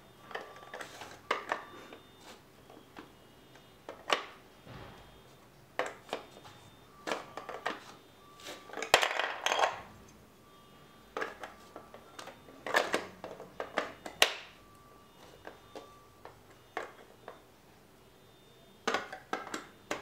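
Plastic LEGO DUPLO bricks clicking and clattering as they are handled, pressed together and set down on a wooden floor. The sounds come in irregular clicks a second or two apart, with a longer busy clatter about halfway through.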